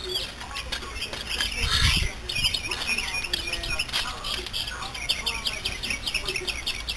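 A bird calling in a fast run of short repeated chirps, about five a second, from about two seconds in. A brief handling noise comes just before the chirps start.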